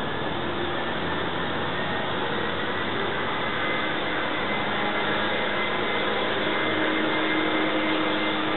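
Propane roofing torch burning steadily with a constant rushing hiss as it heats rolled roofing membrane on a flat roof.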